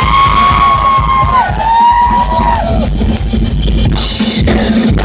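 Rock drum kit played in a live solo: fast strokes on double bass drums, snare and toms with cymbals ringing over them. Two long high held tones sound over the drumming in the first half.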